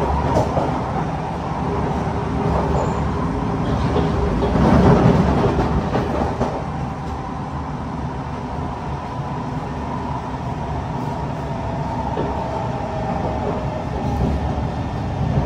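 Cabin sound of a Kawasaki C151 metro train at or near a standstill at a station platform: a steady low rumble and equipment hum, swelling louder about five seconds in.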